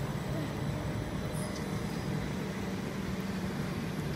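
Great Western Railway Class 387 electric multiple unit rolling past at close range, a steady low hum with wheel and rail noise.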